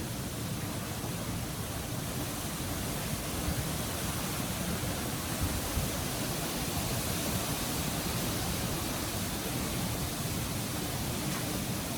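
Quite strong wind blowing through banana and bamboo leaves: a steady rushing hiss with a gusty rumble underneath.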